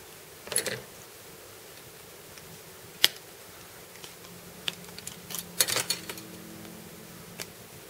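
Small plastic model-kit parts being handled and fitted, giving scattered light clicks and rattles: a soft rustle under a second in, one sharp click about three seconds in, and a quick cluster of clicks a couple of seconds later.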